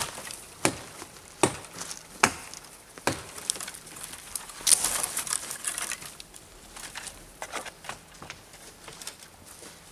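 Dry dead wood being worked by hand: a string of sharp wooden knocks and cracks about every 0.8 s, then a burst of crackling and snapping of dry twigs a little before midway, trailing off into scattered light clicks.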